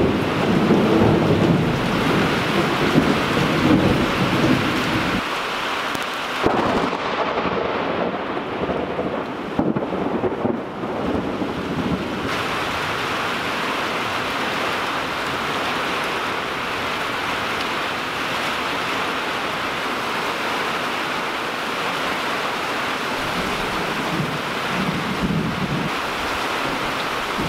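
Heavy rain in a thunderstorm. A low rumble of thunder rolls through the first five seconds, then a steady downpour hiss carries on, with a fainter low rumble near the end.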